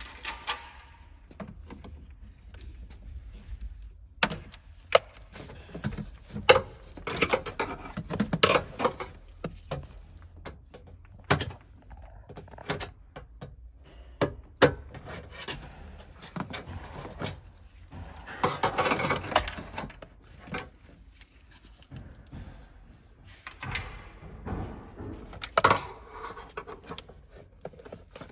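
Hand tool work on a car's hybrid battery pack: irregular sharp clicks and knocks of a metal tool against the battery's metal casing and plastic ducting, with stretches of scraping and handling noise.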